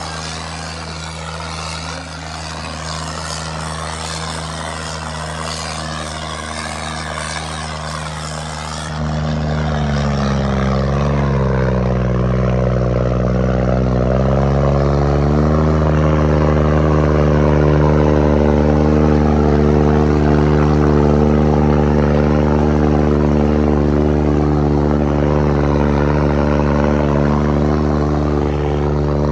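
Diesel tractor engine running hard. About nine seconds in it becomes louder, and its pitch sags and then climbs back as the engine takes a load and recovers.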